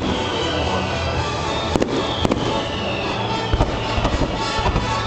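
Fireworks going off: two sharp bangs about two seconds in, then a run of smaller crackling pops in the second half, over music playing throughout.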